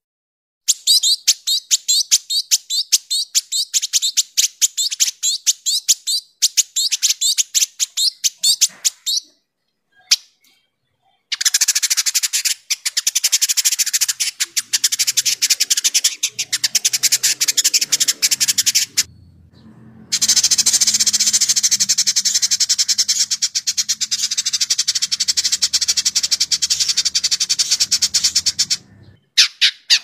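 Village indigobird singing in fast, dense chattering runs of high, sharp notes. There are three long stretches of chatter, separated by short pauses.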